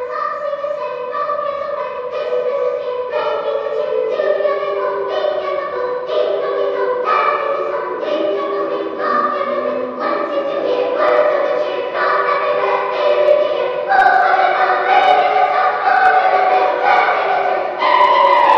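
Choral music: a choir singing long held notes that change about once a second, growing louder about two-thirds of the way through.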